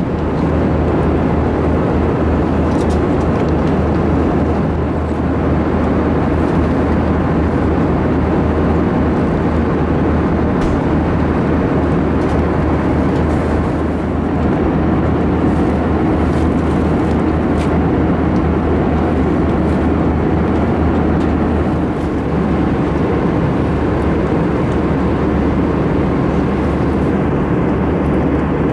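Steady cabin noise inside an Airbus A319 airliner: an even rush of engine and airflow noise over a constant low hum.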